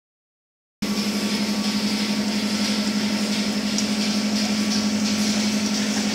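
Silent for under a second, then a steady low machine hum over a hiss of churning water: a wastewater flocculation tank with its mixer running.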